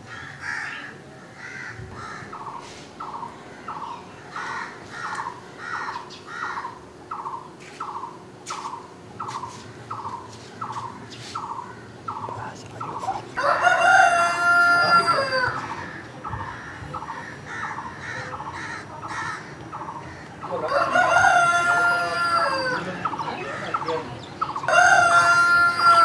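Roosters crowing three times, each crow long and loud, in the second half. Before and between the crows a bird gives short falling calls about twice a second.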